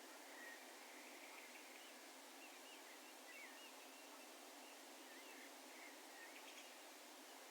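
Faint, distant bird calls: many short whistled notes that curl up and down in pitch, scattered over a steady low hiss of open-air ambience.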